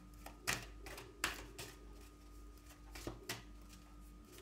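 Cards being handled off-camera: a few irregular soft clicks and taps, over a faint steady hum.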